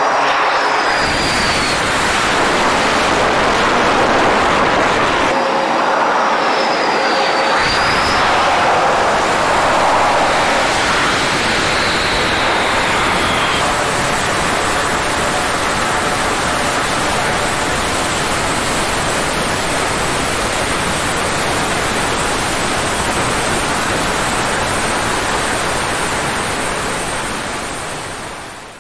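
Loud aircraft engine noise: jet engines running with a few falling whines, then the steady drone of an E-2 Hawkeye's twin turboprop engines, fading out near the end.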